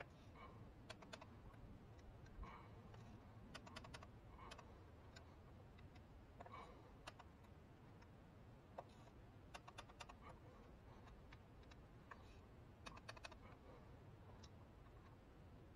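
Faint clusters of quick clicks every few seconds from a ratcheting torque wrench as the small fuel-injector bolts are torqued to 44 inch-pounds.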